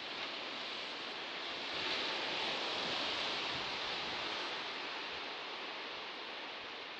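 Sea waves washing onto a shore: a steady hiss that swells into a wave about two seconds in and slowly ebbs away.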